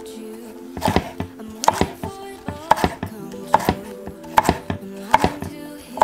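Kitchen knife chopping cucumber on a wooden cutting board: about seven steady, even chops, a little under a second apart.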